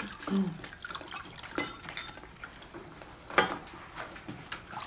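Red wine poured from a bottle into glasses, with light clinks of glassware and tableware; the sharpest clink comes about three and a half seconds in.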